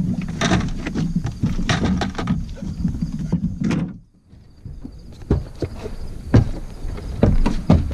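Knocks and clunks of gear being handled in a flat-bottom boat, over a low steady hum that cuts off abruptly about four seconds in.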